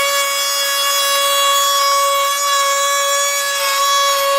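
Dremel rotary tool mounted in a Dremel 335 plunge router attachment, running at high speed with a steady high-pitched whine while its small piloted router bit cuts a profile along the edge of a thin wooden strip. The motor pitch holds steady under the light cut.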